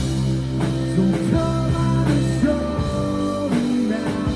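Rock band playing live: a short instrumental stretch between sung lines, with held guitar notes over bass and regular drum hits.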